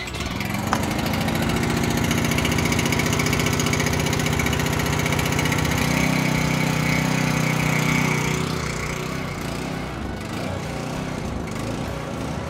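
Power drill boring holes through a metal light-mounting bracket, the motor running steadily under load. It eases off about eight and a half seconds in.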